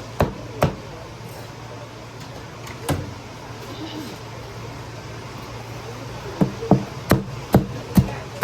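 Cleaver chopping roast pork on a wooden chopping block: sharp knocks about two a second, pausing for several seconds in the middle, then starting again, over a steady low hum.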